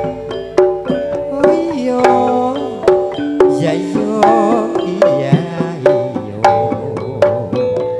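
Live campursari band music: hand-drum (kendang) strokes in a quick, steady rhythm over held melodic notes from the accompanying instruments.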